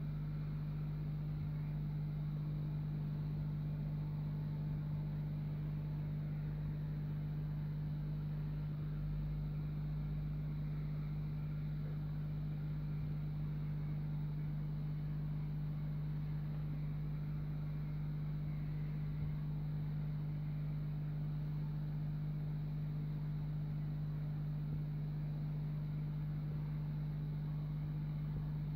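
Aquarium filter pump running with a steady low hum.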